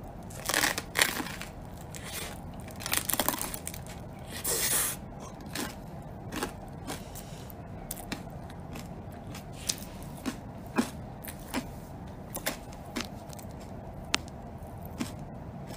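Biting and chewing crunchy toasted bread: a run of crackly crunches in the first few seconds, then only scattered small clicks.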